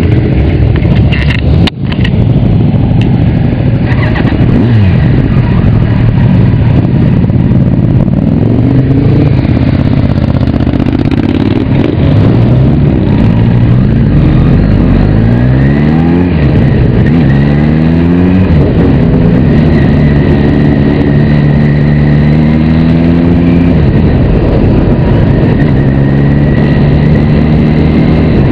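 Motorcycle engine heard from a camera on the bike, pulling away and accelerating through several gears. The pitch climbs and drops back at each shift, then settles to a steady cruise about two-thirds of the way through, with wind rushing past. A brief knock sounds near the start.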